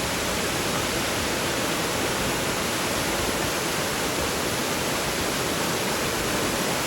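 Water falling and rushing steadily from a small waterfall, an even, unbroken hiss.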